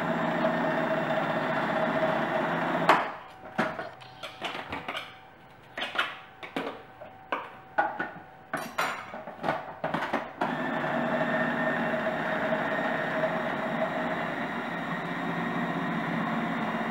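Food processor motor running steadily with its plastic blade cutting lard into flour for pastry. It stops about three seconds in; a run of knocks and short clattering bursts follows. The motor starts again at about ten seconds and runs on while ice water is added to bring the pastry together.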